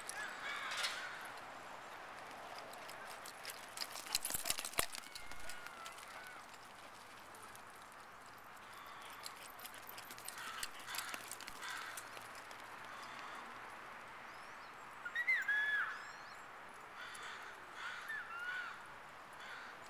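Open-air park ambience with short, high, wavering calls here and there, the loudest a cluster of chirping calls about fifteen seconds in. A run of sharp clicks comes around four to five seconds in.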